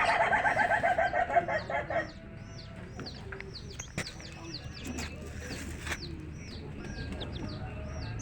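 Chicks peeping steadily in short, high, falling chirps, about two a second. For the first two seconds an adult chicken calls loudly over them in a rapid pulsed run of clucks.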